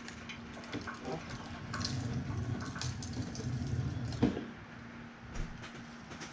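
Shop engine crane lowering an engine: scattered clicks and a low rumble, ending in a single sharp metal knock a little past the middle, over a steady hum.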